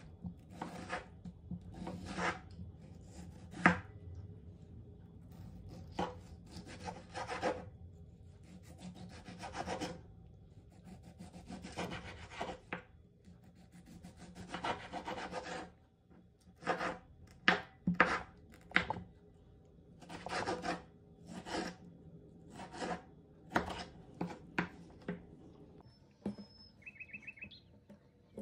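Kitchen knife cutting a tomato on a wooden cutting board: rapid sawing strokes of the blade through the skin and flesh in short bouts, then sharper separate knocks of the blade on the board as the slices are chopped into pieces.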